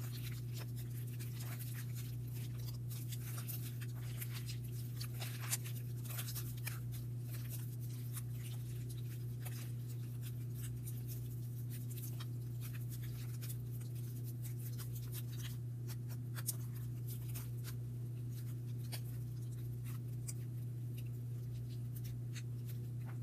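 Wet slime being squished and kneaded by hand, a string of small sticky clicks and crackles as foaming hand soap is worked in, over a steady low hum.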